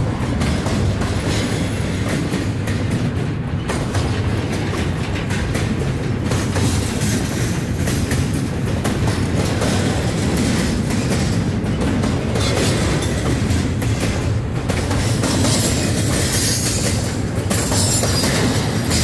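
Norfolk Southern freight train rolling past, the cars making a steady rumble with wheel clicks over the rail joints.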